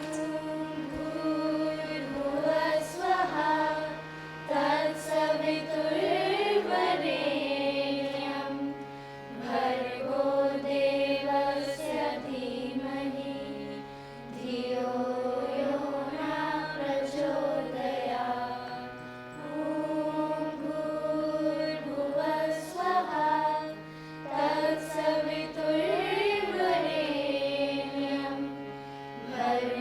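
Singing of a slow Indian-style melody with gliding, ornamented notes over a steady low drone. It comes in phrases of several seconds with short breaks between them.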